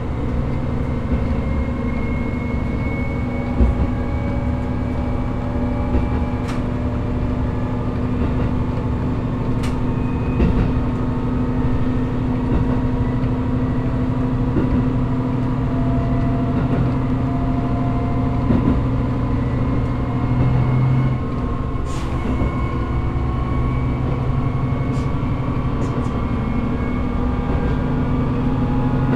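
Diesel railcar running under power, heard inside the cab: a steady engine tone that climbs slowly in pitch several times as the train gathers speed, over the rumble of wheels on the rails, with a few sharp clicks.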